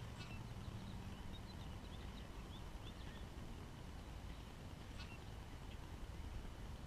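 Faint bird calls: scattered short high chirps, with a sharper call right at the start and again about five seconds in, over a steady low rumble.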